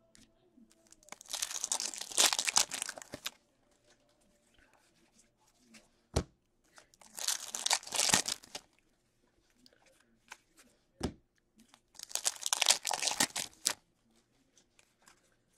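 2018-19 Upper Deck Series 2 hockey card pack wrappers being torn open and crinkled by hand, in three bursts of crackling a few seconds apart. Two short sharp clicks fall between them.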